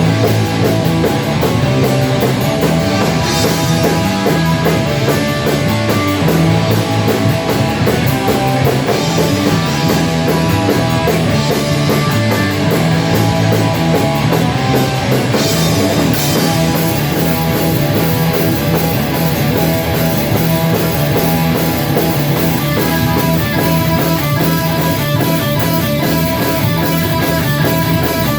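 Rock band playing a loud, heavy song in rehearsal: guitar over a drum kit, keeping up a steady fast beat throughout.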